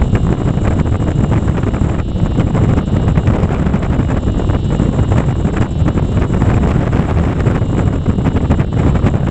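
Steady, loud wind noise from airflow buffeting the microphone in flight under a paraglider.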